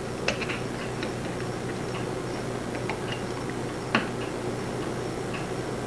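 Small, light metallic clicks from fingers working the click on a clock's mainspring great wheel, held in a loop-end mainspring winder, as the wound spring is readied to be let down. The clicks come irregularly; the two sharpest are just after the start and about four seconds in.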